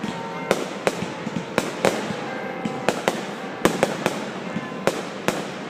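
Fireworks going off: a rapid, irregular series of sharp bangs, about a dozen in under six seconds, over a steady background of noise.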